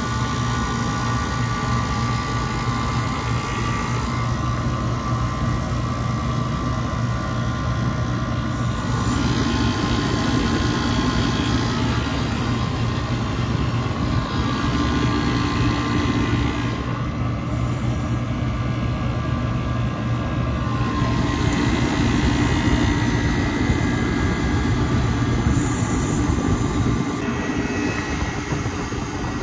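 Walk-in freezer condensing unit running after a refrigerant recharge: the hermetic compressor gives a steady low hum under the even rushing noise of the unit.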